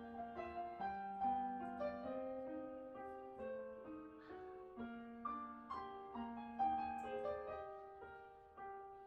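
Background piano music: a gentle melody of single and layered notes that fades toward the end.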